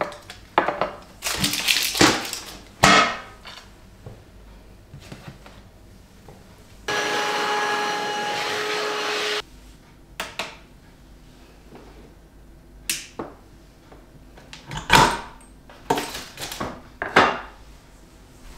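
Scattered taps, knocks and rustles of handling on a stone work board, with a sharp knock about 15 seconds in. In the middle there is a steady whirring hum with several fixed tones that lasts about two and a half seconds and then cuts off.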